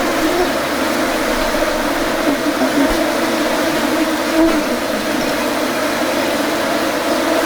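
Honeybees buzzing as a steady hum that wavers slightly in pitch.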